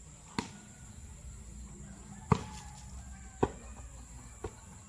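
A volleyball being struck by hands and forearms in a rally: four sharp smacks about a second apart, the second one the loudest.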